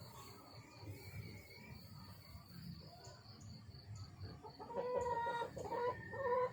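A rooster calls in a run of short, loud pitched notes over the last couple of seconds.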